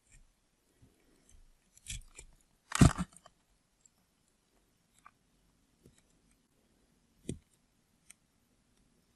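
A knife cutting through a bar of soap, with crisp crackling cuts. There is a cluster of cuts about two seconds in, the loudest crunchy cut just before three seconds, and another sharp one about seven seconds in, with faint ticks in between.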